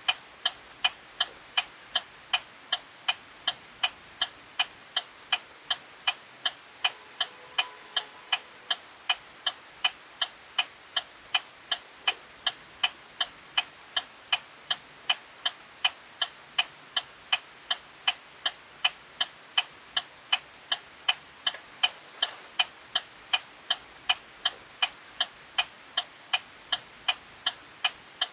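Car turn-signal indicator clicking inside the vehicle: a steady, even tick-tock of sharp clicks, several a second, that runs without a break.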